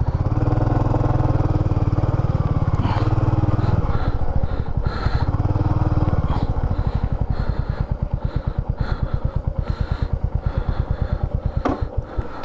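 Royal Enfield Meteor 350's single-cylinder engine running with a steady pulsing beat, easing off a little about six seconds in.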